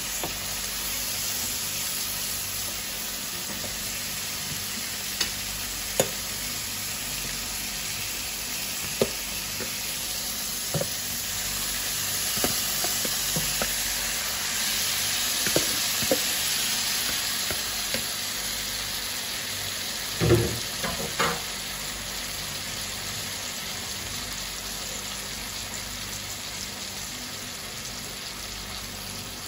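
Seafood and sliced onion and tomato sizzling steadily in a hot frying pan as they are stirred, with a few light knocks scattered through and a louder clatter about two-thirds of the way through.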